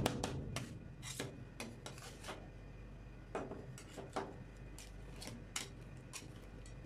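Metal spatulas scraping and tapping on a chilled steel rolled-ice-cream plate as they push and spread the ice cream mixture: scattered clicks and scrapes with quieter gaps between.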